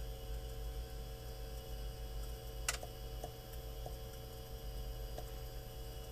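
A few faint clicks of fingers pressing the buttons on a JPI EDM 900 engine monitor, with one sharper click about two and a half seconds in, over a steady low hum.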